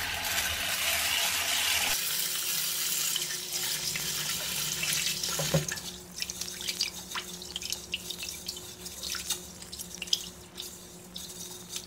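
Kitchen tap running into a rice cooker's inner pot of adlai (Job's tears) grains, which stops after about five seconds. Hands then swish and rub the grains in the water, with light scattered splashes, to rinse them before cooking.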